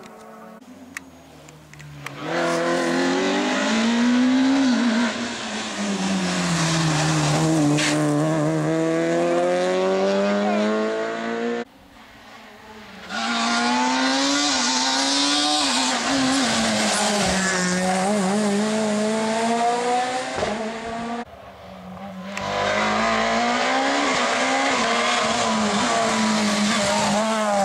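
Rally cars driven hard through a corner in three separate passes that cut in abruptly: engines revving high, the pitch dropping on braking and climbing again through the gears, with tyres squealing. The last car is a Peugeot 207 S2000.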